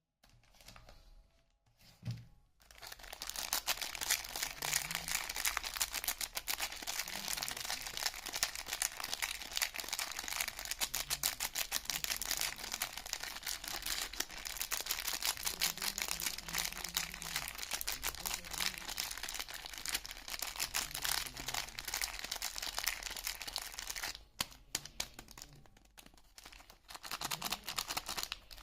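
Soap wrapper being torn open and crinkled by hand: a dense, continuous crackling of paper or plastic packaging that starts a couple of seconds in, eases off for a moment near the end, then picks up again.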